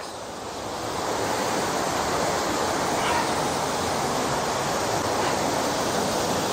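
Crammel Linn waterfall, a 7.6 m fall of river water into its plunge pool, making a steady rushing noise close by. It grows louder over the first second or so, then holds level.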